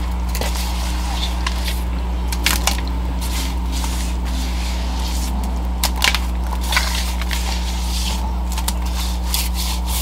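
Gloved hands packing and pressing damp, gritty concrete mix into a metal pail around a plastic bucket form: irregular crunching and scraping with scattered short clicks, over a steady low hum.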